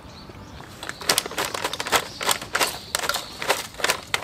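Potato chips being crunched while chewing: sharp, irregular crunches a few times a second, starting about a second in.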